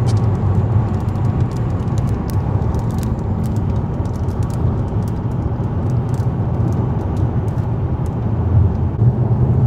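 Steady road and engine noise of a car driving at highway speed, heard inside the cabin: a low rumble with tyre hiss and a few faint clicks scattered through it.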